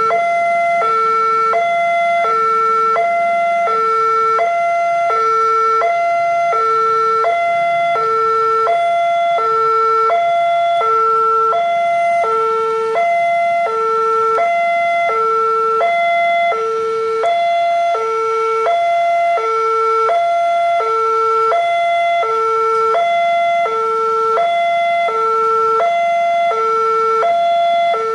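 Railway level-crossing warning alarm sounding continuously, a low and a higher electronic tone alternating about once a second, signalling that a train is approaching and the crossing is closed.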